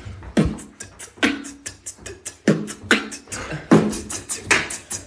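Human beatboxing: a quick rhythmic run of mouth-made kick and snare hits, a few every second, with short low pitched notes after some of the stronger hits.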